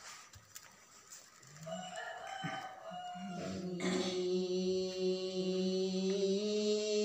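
A woman's voice chanting, starting softly about a second and a half in and swelling into one long, steady held note that steps up slightly in pitch near the end.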